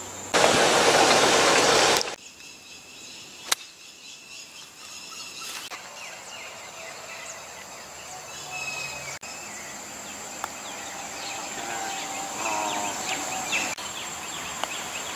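Outdoor ambience of insects and birds: a steady high-pitched insect buzz, with scattered bird chirps and trills. A loud burst of rushing noise lasts about two seconds near the start, and a single sharp click follows a second or so later.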